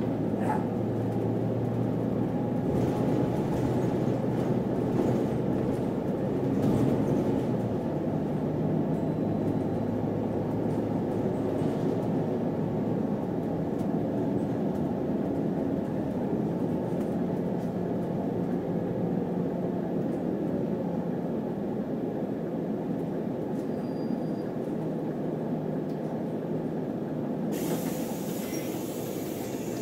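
City bus in motion, heard from inside: steady engine and road rumble with a low engine hum that shifts in pitch. A brief hiss about two seconds long comes near the end.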